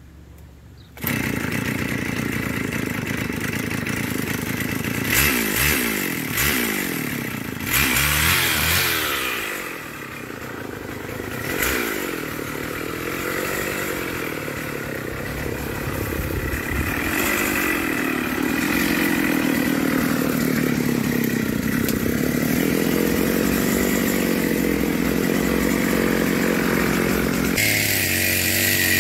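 Stihl FS550 two-stroke brushcutter engine catching about a second in after a pull-start, then revved up and down a few times before settling into steady running. Near the end it runs at working speed, cutting dry grass with the trimmer line.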